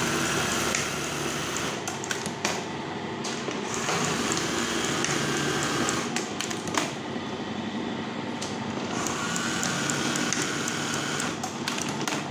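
Brother 814 buttonhole sewing machine running at a steady, unhurried pace: a smooth, soft mechanical hum with a few clicks. With its number 46 gear it sews many stitches per buttonhole and so runs slowly and quietly.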